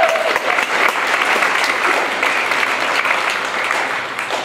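Audience applauding: steady, dense hand-clapping that starts to die down near the end.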